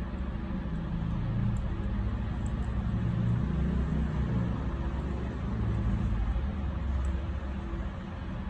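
Steady low background rumble, with a few faint light clicks as a thin wire is twisted around a battery cell's terminal.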